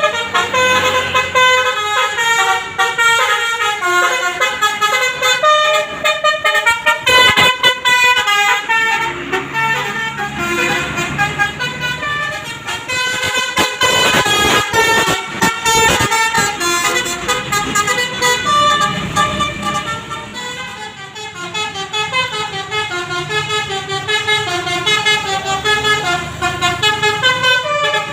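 Telolet basuri musical bus horn playing a fast, stepping tune of short tooted notes, with a rush of louder noise near the middle.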